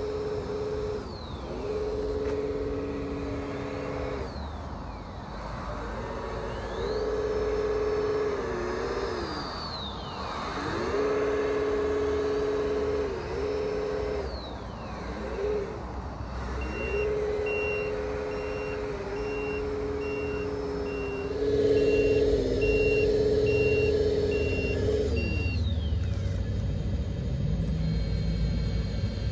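Electronic sound kits on an RC Cat 374F excavator and RC 8x8 dump truck playing a simulated diesel engine through their small speakers, its pitch dipping and rising again and again as the sticks are worked. From about halfway through, a reversing alarm beeps about once a second for several seconds, and the engine sound thickens near the end.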